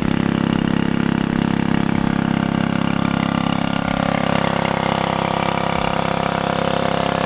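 A small engine running steadily, its pitch shifting slightly about halfway through.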